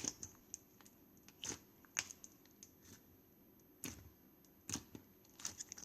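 Ice slime being pressed and played with, its hardened crust giving sharp crunchy crackles at irregular intervals, roughly a second apart.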